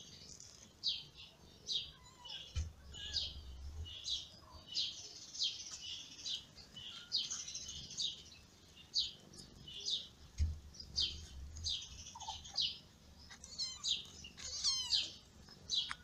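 Newborn kittens squeaking while nursing: short high-pitched falling cries about once or twice a second, with a longer wavering mew near the end. Two dull low thumps come a few seconds in and about two-thirds of the way through.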